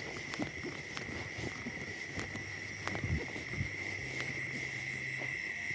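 Insects trilling with a steady high tone, over footsteps and rustling in dry vegetation, with a low hum coming and going.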